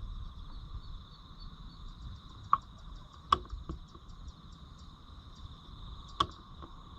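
Insects such as crickets trilling steadily at two high pitches, with a few sharp clicks standing out over them.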